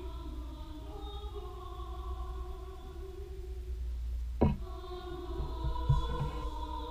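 Mixed choir singing slow, sustained chords that shift gently. Two sharp knocks cut through, a little past halfway and again near the end.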